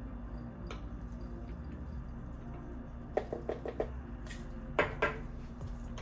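Small kitchen storage jars and their lids being handled: light clicks and taps, a quick run of four about three seconds in, then two louder knocks near the five-second mark.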